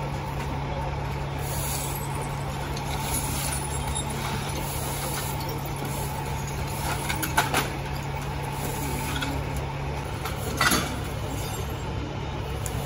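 Fire truck's diesel engine idling with a steady low hum. There are two brief clatters, one about halfway through and one near ten and a half seconds in.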